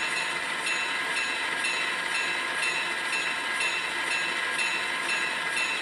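Locomotive bell from a LokSound decoder's EMD E8 sound file, recorded from a real E8, ringing steadily at about two strikes a second through the model locomotive's speaker. Under it runs the idle of the dual EMD 567 diesel prime-mover sound.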